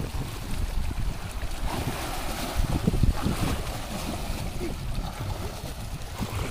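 Fast muddy water rushing out of a concrete culvert pipe and churning around a man's legs as he wades through it, a steady noisy rush with wind rumbling on the microphone.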